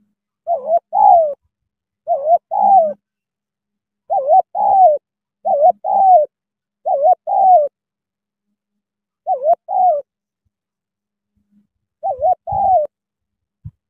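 A spotted dove, a caged decoy bird, cooing loudly and close by. It repeats a two-part phrase of wavering coos about eight times with short gaps and one longer pause in the middle.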